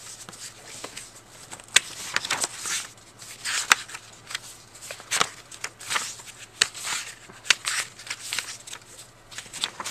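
Paper pages of a spiral-bound sketchbook being turned and handled: a run of irregular, crisp paper rustles and flaps.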